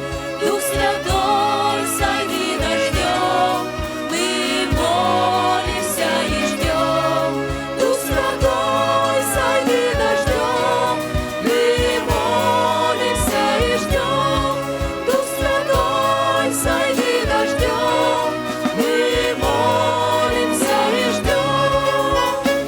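Live church worship song in Russian: singers backed by a band, with a steady drum beat and bass under the voices.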